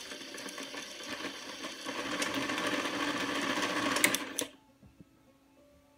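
Electronic sewing machine's motor running at speed to wind a bobbin, a steady whir that grows louder about two seconds in. A couple of sharp clicks, then it stops suddenly about four and a half seconds in.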